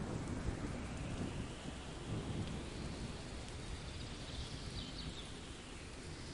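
Steady rain falling, with a low rumble of thunder dying away in the first second or so.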